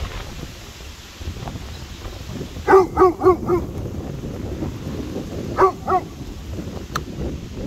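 Borzoi barking at a passing dog: a quick run of four barks, then two more a couple of seconds later.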